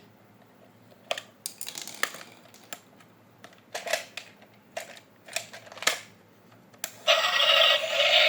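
Sharp plastic clicks and rattles of a toy being handled, then about seven seconds in a battery-powered toy switches on with loud electronic music.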